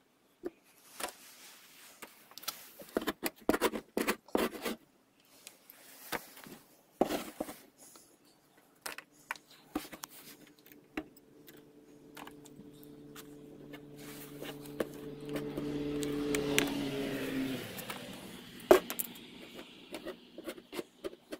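A metal-bladed scraper scraping and knocking on the board of a steam wax melter, pushing soft wax residue off into a tray: a run of short scrapes and clicks, with one sharp knock near the end. A steady low hum swells through the middle and then cuts off.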